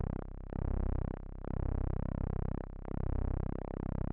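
PreSonus Mojito software synthesizer holding one low note while its LFO modulates the oscillator's pulse width. The tone sweeps hollow and back in a slow repeating cycle, about once every second and a half.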